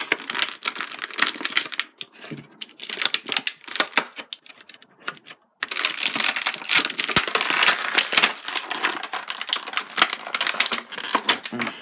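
Clear plastic packaging tray of an action figure being handled, a dense run of crackling, clicking plastic, with a brief break about halfway through.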